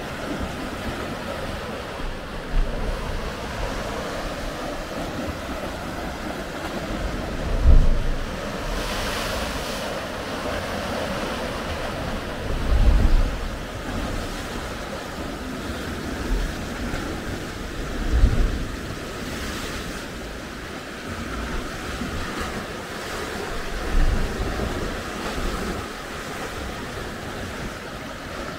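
Sea waves washing and breaking against the foot of rocky sea cliffs: a steady wash of surf. Wind on the microphone adds a few low thumps, about every five seconds.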